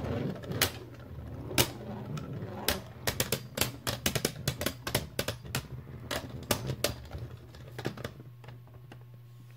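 Two Beyblade Burst tops, Dusk Balkesh B5 and Right Artemis A5, clashing in a plastic stadium: rapid plastic-on-plastic clacks, densest about three to six seconds in, over a steady low hum. The clacks thin out near the end as one top wobbles toward a stop.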